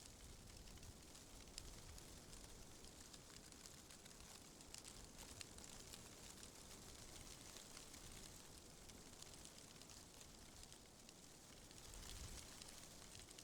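Faint wind rustling through tree leaves, a steady hiss with fine crackling of the leaves, swelling slightly near the end.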